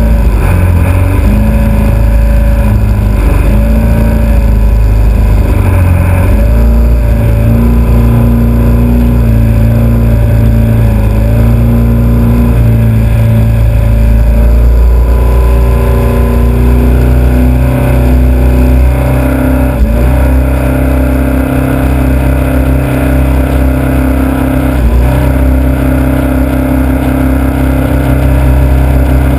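The Celli hydroplane's Alfa Romeo Autodelta 2.5 V6, derived from the Montreal engine, running close up at low speed. Its note steps up and down with the throttle in the first half, then holds steadier and slightly higher, with two brief dips near the end.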